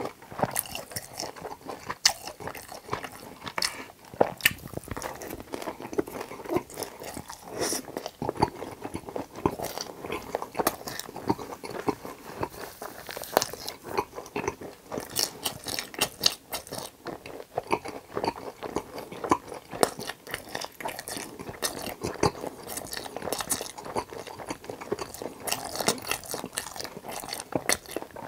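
Close-miked eating sounds: crisp crunching bites and chewing of battered fried pork (tangsuyuk) topped with cheese, in a dense, irregular run of sharp crackles.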